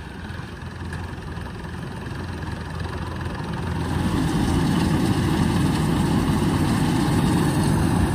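Kubota DC-105X combine harvester's diesel engine running steadily. It becomes louder and fuller about four seconds in, with the machine cutting rice.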